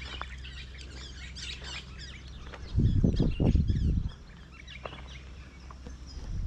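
Birds chirping and calling over a steady outdoor background. About three seconds in, a loud low rumble lasts roughly a second and a half.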